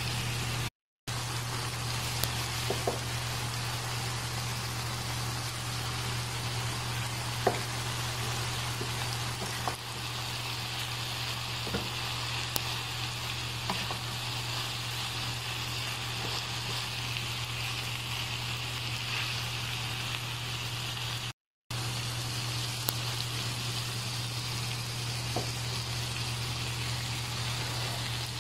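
Chopped chicken and vegetables sizzling as they fry in a pan, with scattered clicks and taps of a spatula stirring them. A steady low hum runs underneath, and the sound cuts out briefly twice.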